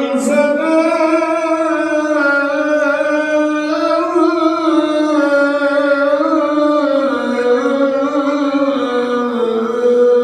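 A muezzin's voice chanting the adhan (Islamic call to prayer), one long drawn-out melismatic phrase with slowly wavering pitch that sinks a little lower in its second half.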